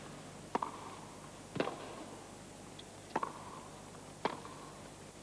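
Tennis ball struck by rackets in a baseline rally: four sharp hits about a second apart, each with a short ring from the strings.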